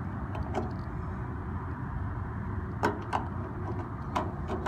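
Original metal gas cap of a 1973 Toyota Hilux being twisted by hand in its filler neck, giving short sharp clicks and scrapes: two near the start, two around three seconds in, and more near the end, over a steady low background rumble.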